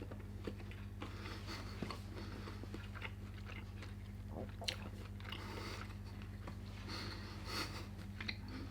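Close-up chewing and crunching of crispy fried pork belly (samgyeopsal), with soft scattered crunches and a few sharper ones in the second half.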